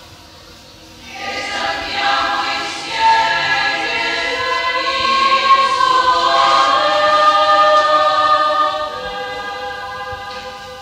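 Women's choir singing a hymn in three equal voices. A new phrase enters about a second in after a brief pause, swells to its loudest in the middle and fades near the end.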